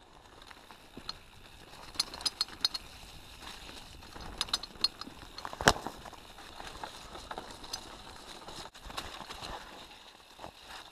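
Mountain bike ridden over a leaf-strewn dirt singletrack: a steady rolling rush of tyres on leaves and dirt, with runs of quick rattling clicks from the bike twice and one sharp knock about halfway through.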